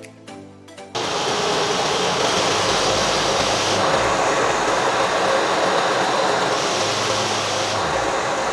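Philips PowerPro FC9352/01 bagless vacuum cleaner switched on about a second in, then running steadily: a loud rush of air with a faint steady tone underneath.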